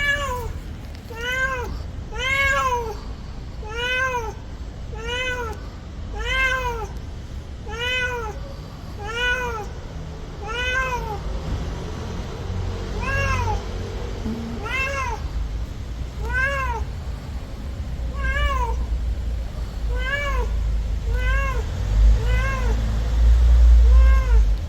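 A cat with an injured hind leg meowing over and over, about one call every second and a half, each call rising then falling in pitch. Its crying is what it does while it cannot move. A low rumble rises beneath the calls near the end.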